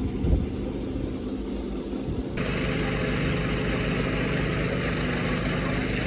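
A vehicle engine idling steadily, with a single low thump just after the start. About two and a half seconds in, the sound abruptly becomes fuller and brighter and then holds steady.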